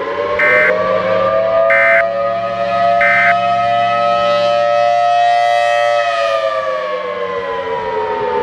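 Civil defense warning siren winding up to a steady wail, holding, then winding down slowly near the end. Three short, higher beeps about a second and a quarter apart sound over it in the first few seconds.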